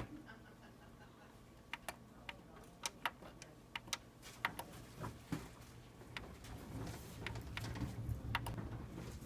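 Buttons on an HP LaserJet printer's control panel clicking as they are pressed, a dozen or so short, sharp clicks at irregular intervals. A low steady hum runs underneath.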